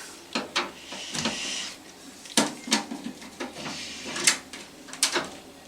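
Scattered clicks, taps and scrapes of hands working on a desktop computer's case, taking out its screws.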